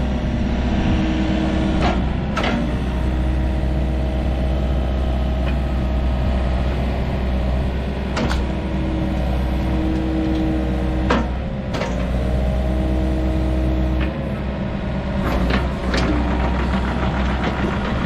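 Excavator's diesel engine running steadily, with a whine that comes and goes in several stretches and several sharp metal knocks.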